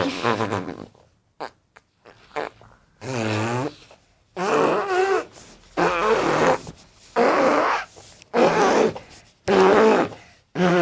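Recorded fart sound effects played back one after another from YouTube. There are a few short blips, then about seven buzzy, wavering farts, each under a second long and coming roughly once a second.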